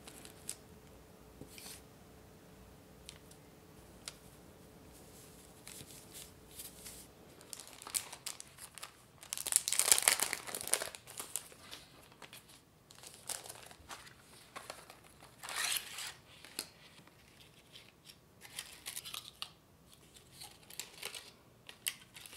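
Clear plastic wrapping crinkling and rustling as it is handled. There is one long loud rustle about ten seconds in, with shorter crinkles after it, and before it only a few faint clicks.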